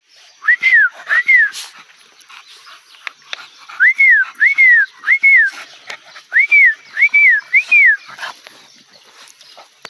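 A person whistling to call dogs: eight short whistles, each rising then falling, in a pair and then two runs of three.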